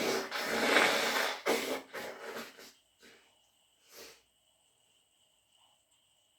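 A person with a cold and a cat allergy sneezing hard, followed by several shorter breaths that fade out, and one faint breath about four seconds in.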